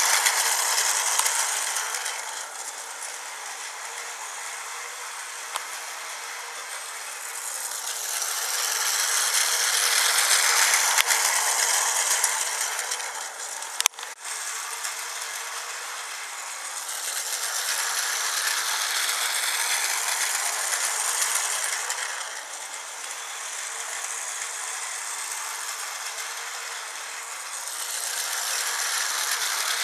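Battery-powered Tomy Plarail toy train's small motor and plastic gearbox whirring as it runs on plastic track. The noise grows louder and fades several times as the train laps the layout, with a sharp click and a brief drop about halfway through.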